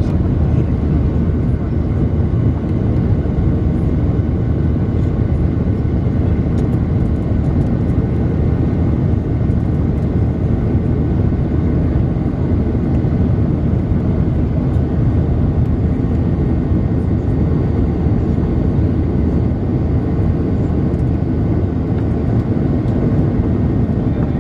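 Boeing 737 cabin noise in the climb: the turbofan engines and the rush of air past the fuselage make a steady, deep noise, with a faint steady whine above it.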